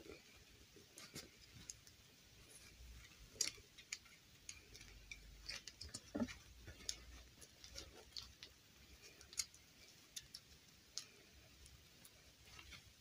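Faint, irregular small clicks and rustling from hands handling a plastic fashion doll while working a fabric dress onto it, with one sharper click about three and a half seconds in.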